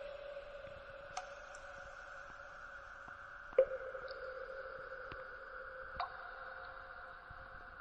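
Four sharp clicks or taps, the loudest about three and a half seconds in, over a steady hum.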